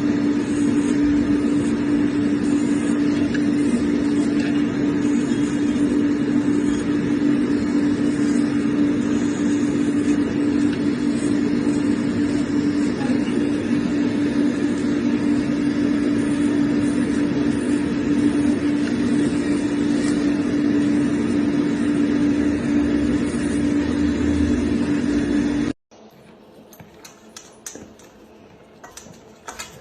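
A loud, steady mechanical hum with one fixed droning tone, unchanging for a long stretch, that cuts off abruptly near the end; faint clicks and knocks follow.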